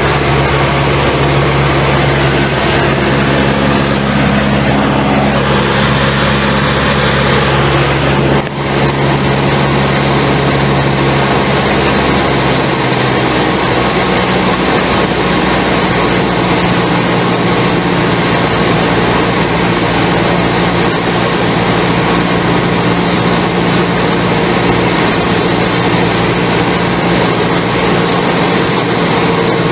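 Cessna 172's piston engine and propeller droning steadily, heard from inside the cockpit in flight. The sound breaks off briefly about eight seconds in, and a few seconds later the engine's note changes.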